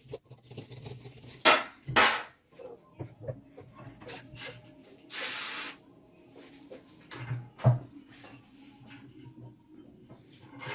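Knocks and clatter of the antique hand-cranked grinder's parts being handled during restoration, with a short hiss from a spray about five seconds in.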